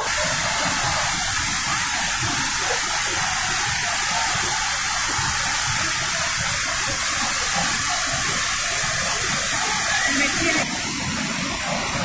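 The Pailón del Diablo waterfall plunging into its rocky gorge: a steady, loud rush of falling water. About ten and a half seconds in it cuts off to a quieter, duller background.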